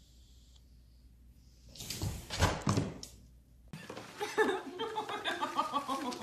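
A single dull thud about two seconds in. From about four seconds in, people's voices follow.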